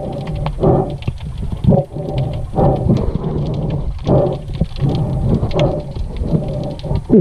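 Underwater noise heard through a camera housing: irregular surges of rushing, sloshing water about once a second as the diver moves, with many scattered sharp clicks.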